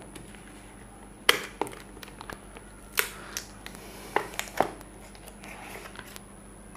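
A small cardboard phone box being handled and opened: several sharp taps and clicks as fingers grip it and knock it on the table, and a brief papery scrape as the lid slides up off the base.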